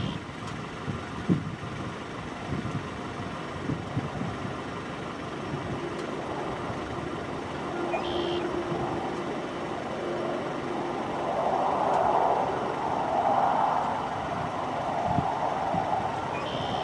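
Distant single-turboprop engine of a Cessna 208B Super Cargomaster running as it rolls out along the runway after landing, a steady hum that swells and pulses from about two-thirds of the way in. Short high beeps come about every eight seconds, three in all.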